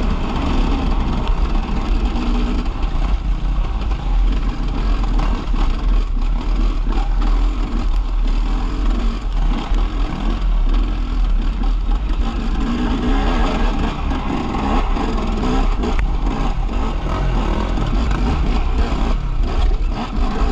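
KTM EXC enduro dirt bike engine running as the bike is ridden along a forest trail, the revs rising and falling continuously with the throttle.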